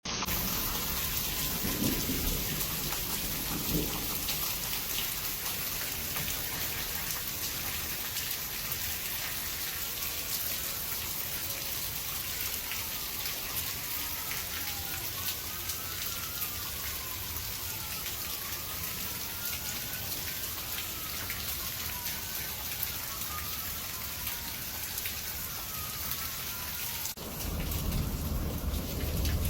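Heavy rain pouring steadily during a thunderstorm, with low rumbles of thunder about two and four seconds in and a louder rumble building near the end. A faint tone rises and falls over and over in the background through the middle.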